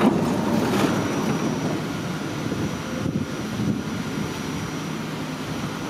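St. Louis R44 subway car standing at the platform: a sudden burst of noise as its doors open, then the stopped train's steady low noise with a faint high whine.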